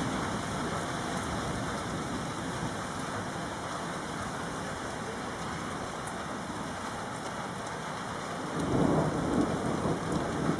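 Steady rain during a thunderstorm, with a louder, rolling rumble of thunder starting about two seconds before the end.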